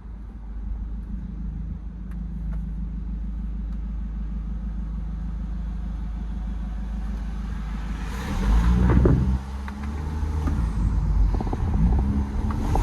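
BMW 320d's N47 four-cylinder turbodiesel, fitted with an open air intake, running steadily and then getting suddenly louder about eight seconds in as it accelerates. It drops back briefly a second and a half later, then pulls again.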